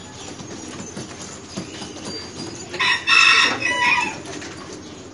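A rooster crows once, loudly, for about a second and a half around the middle, over the faint low cooing of pigeons.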